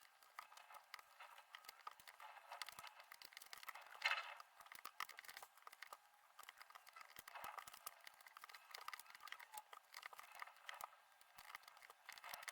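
Faint, quick clicks and rustles of jigsaw puzzle pieces being handled, sped up, with a sharper click about four seconds in.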